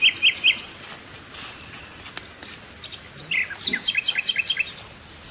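Birds calling: a quick run of four sharp chirps at the start, then a flurry of short, falling notes about three to four seconds in.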